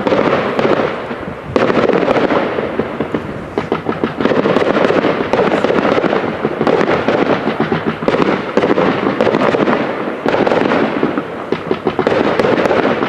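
Fireworks display: a dense, continuous run of bangs and crackles from shells bursting in the sky, easing briefly now and then.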